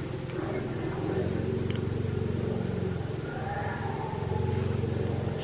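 Car engine and road noise while driving: a steady low hum.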